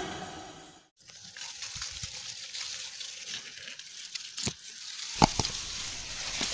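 A rushing intro sound effect dies away within the first second. Then comes a faint outdoor hiss with a few sharp clicks and rustles.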